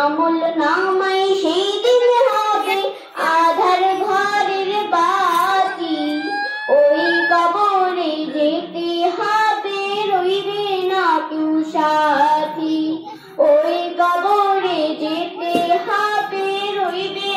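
A girl singing a Bengali Islamic devotional song into a microphone, one voice in long, wavering held notes, pausing briefly for breath twice between phrases.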